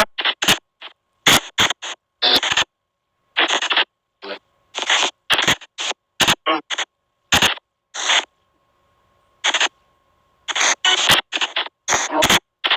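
Spirit-box app output from a phone: short, chopped bursts of white noise and garbled voice fragments, cutting in and out several times a second with brief silent gaps between them. During a longer gap in the middle, a faint steady tone hums.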